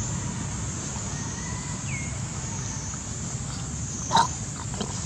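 Steady outdoor background with a low rumble and an even high hiss. A faint thin whistling call rises about two seconds in, and one short sharp call-like sound comes about four seconds in.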